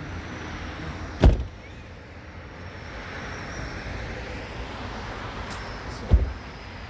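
Two firework shells bursting with deep booms, about five seconds apart: one just over a second in and one near the end, each with a short rolling tail, over a steady hum of traffic.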